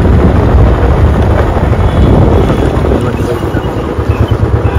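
Heavy wind rumble on the microphone from a moving vehicle, with engine and road noise underneath.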